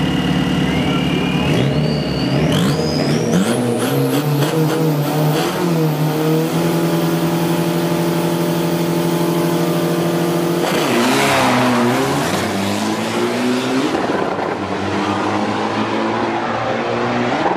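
Isuzu D-Max 3.0-litre turbo-diesel drag pickups on the start line: engine revving with a rising turbo whistle, then held at high revs for about four seconds. About eleven seconds in they launch in a sudden loud burst, with the revs dipping and climbing through gear changes as the trucks pull away and fade.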